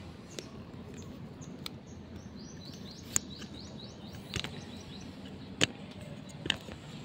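A small bird chirping in a quick run of short falling notes over steady background noise. Four sharp clicks or knocks come through the second half and stand out as the loudest sounds.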